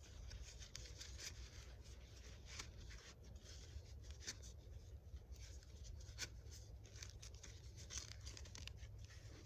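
Faint, scattered clicks and rustles of hands handling a small survival shovel and its kit, with a slightly louder click about six seconds in and another near eight seconds.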